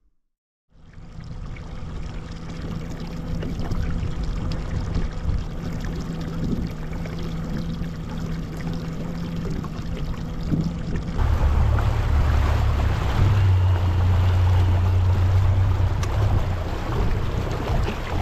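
Boat motor running under way, with water rushing past the hull. About eleven seconds in, the engine note turns deeper and louder.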